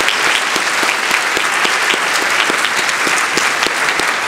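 An audience applauding steadily in a large hall: many hands clapping at once.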